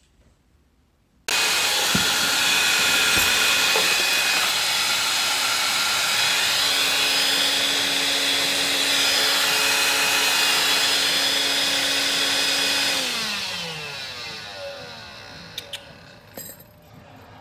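Loud electric motor appliance switched on abruptly about a second in, running steadily with a whine, then switched off near the end and winding down with falling pitch.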